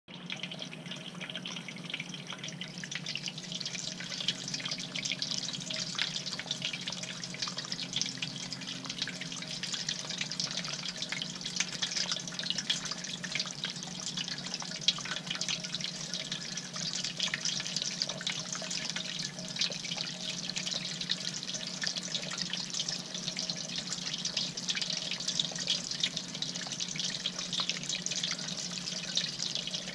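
Bird-bath fountain bubbler: water wells up and splashes steadily into a glazed bowl, with small drips and a low steady hum underneath.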